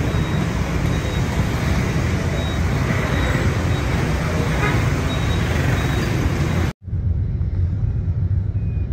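Steady road and traffic noise from a car driving: a low rumble with hiss. It cuts out abruptly about seven seconds in and comes back duller, with less hiss.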